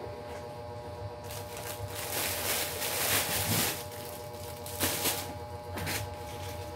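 Clear plastic wrapping crinkling and rustling as a handbag is pulled out of it, in one long stretch from about a second in to about four seconds in, then two short rustles near the end.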